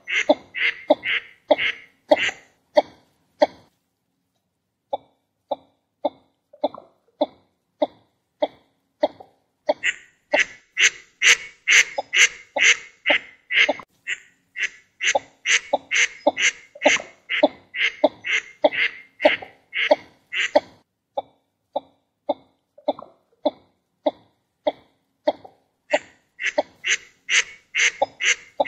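Northern shovelers calling: a long run of short, clipped calls at about three a second, with a brief pause about four seconds in.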